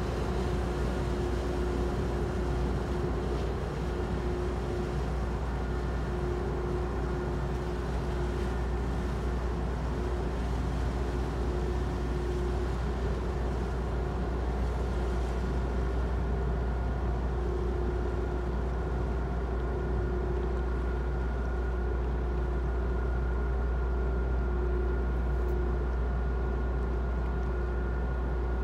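Large car ferry's engines running steadily as it berths: a deep rumble with a steady hum and a fainter higher whine over it, growing slightly louder near the end.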